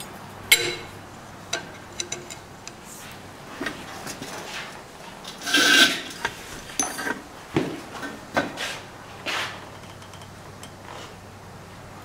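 Steel tongs clinking and scraping against a hot steel bar clamped in a vise while it is twisted by hand: scattered sharp metal clinks, with a longer, louder scrape about six seconds in.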